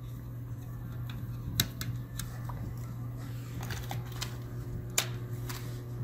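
Light clicks and taps of a hand screwdriver and small screws being handled on a laptop's plastic case, about six in all, the sharpest about five seconds in, over a steady low hum.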